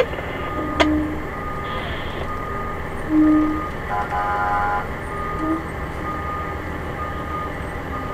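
A truck's reverse alarm beeping steadily, roughly once a second, over the low steady rumble of an idling fire engine. A short low tone sounds about three seconds in.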